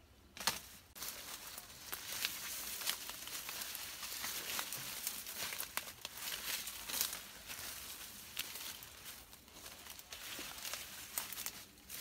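Dry sugarcane leaves and leaf litter rustling and crinkling as someone pushes and works among the cane stalks, with many short sharp snaps and crackles.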